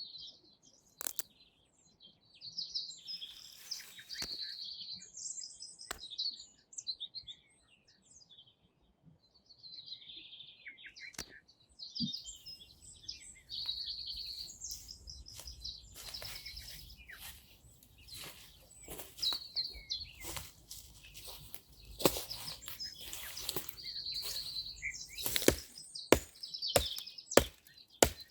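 Songbirds chirping and singing in the woods, with a run of sharp knocks and cracks that come more often in the second half, several close together near the end.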